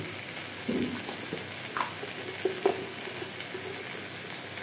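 Onion-tomato masala sizzling steadily as it fries in a metal kadhai, with a few small clicks and one sharper click about two and a half seconds in.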